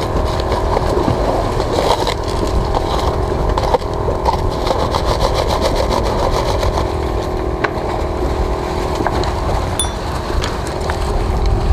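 An engine running steadily at an even pitch, over a low rumble, with a few light clicks.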